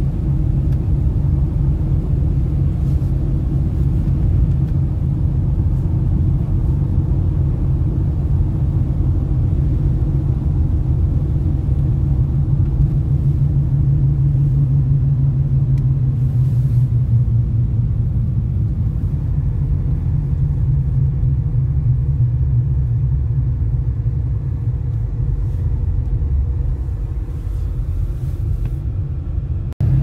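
Steady low rumble of a car driving on wet, slushy roads, engine and road noise heard from inside the cabin. It drops out abruptly for a moment near the end.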